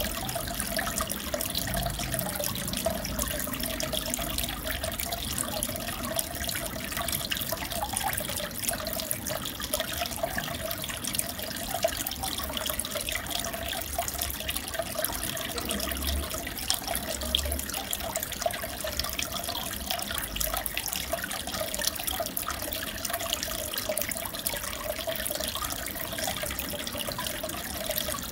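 Aquarium water bubbling and trickling steadily, with a constant patter of small pops from bubbles breaking at the surface.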